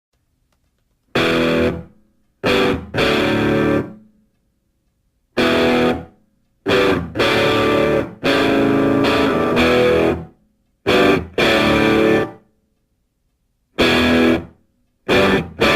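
Electric guitar chords with distortion, played in stop-start bursts of about half a second to two seconds, each ending abruptly, with dead silence between them.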